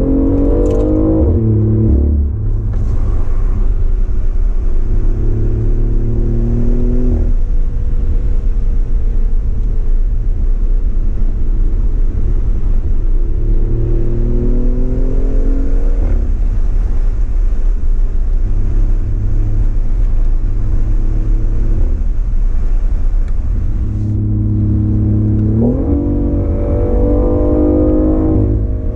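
BMW i8's turbocharged three-cylinder engine with its custom exhaust, heard from the cabin, accelerating hard through the gears: the engine note climbs, falls back at each upshift and climbs again several times, then jumps up sharply about three seconds before the end.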